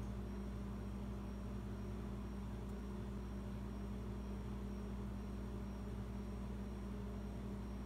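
Steady low hum with a faint hiss under it, unchanging throughout.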